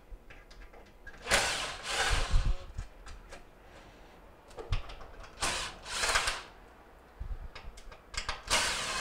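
Power drill with a Phillips bit backing out the control-panel switch screws of an electric range, running in several short bursts of under a second each with pauses between.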